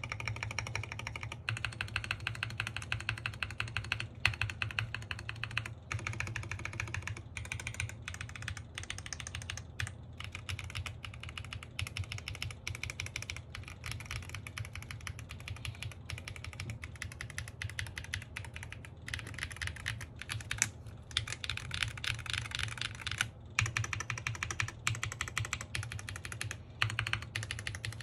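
Typing on an NJ68 Max mechanical keyboard, foamed inside, with pudding keycaps. It is a fast, dense run of keystroke clacks broken by short pauses.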